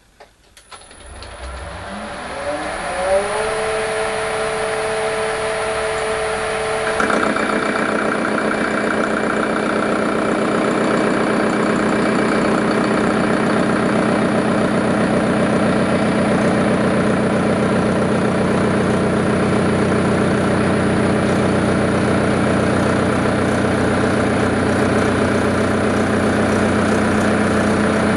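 Metal lathe motor starting and spinning up over about three seconds, then running steadily. About seven seconds in the sound grows louder and fuller with a fine rattle as the parting tool cuts into the spinning square brass bar, an interrupted cut on its flat faces.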